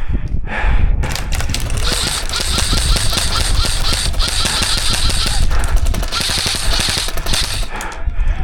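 Airsoft guns firing on full auto: a rapid, rattling stream of shots in two long bursts, from about two to five seconds in and again from about six to seven seconds.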